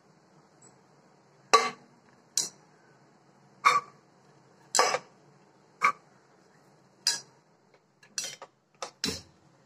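Sweet corn kernels dropped into an empty white-lined cooking pot, landing as a series of about ten sharp clattering taps, roughly one a second and coming closer together near the end.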